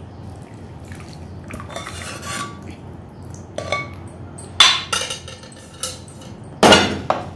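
A utensil scraping and knocking against a metal pot as the last of the custard is scraped out. Soft scrapes come first, then a handful of sharp metallic clinks in the second half, the loudest near the end.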